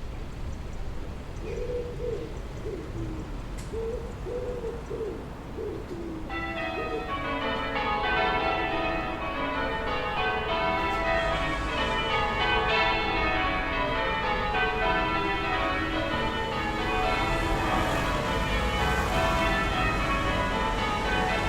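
Distant church bells start ringing about six seconds in, many bells struck one after another in quick succession, over a low steady town rumble.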